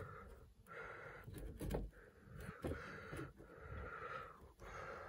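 Faint breathing close to the microphone, several soft breaths in and out, with a few light clicks.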